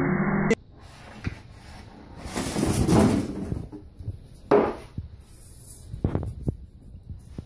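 Half a second of rushing water spray, then a styrofoam packing insert stuck around a cat knocks and scrapes on a wooden floor as the cat walks, with a sharp knock about four and a half seconds in and smaller clicks after.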